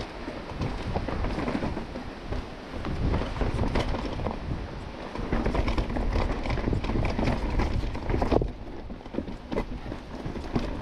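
Mountain bike riding over rock slabs and leaf-covered dirt: tyres crunching and the chain and bike rattling with many small knocks over the bumps, with a sharp knock about eight seconds in. Wind rumbles on the microphone throughout.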